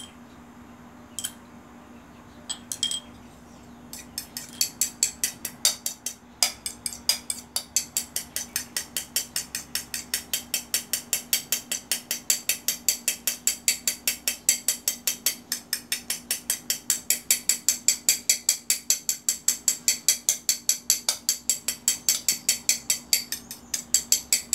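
Metal spoon beating a frothy mixture of botica inteira root and water in a ceramic plate, striking the plate about four or five times a second from about four seconds in, after a few separate clinks. The root scrapings are being whipped into a stiff foam like beaten egg whites.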